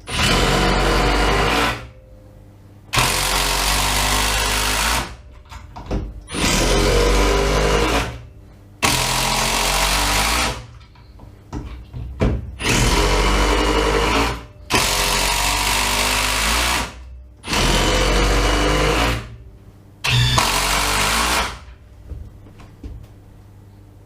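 Cordless impact drivers, a Milwaukee M18 FUEL Surge hydraulic impact driver and a conventional Bosch impact driver, run in about eight bursts of one and a half to two seconds each with short pauses between. They are run inside a house, where the noise is louder than outdoors.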